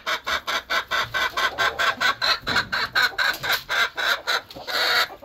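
Poultry calling in a fast, even run of short clucks, about five or six a second.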